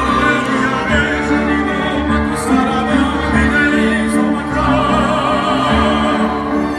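Slow music with a singing voice holding long notes over orchestral accompaniment.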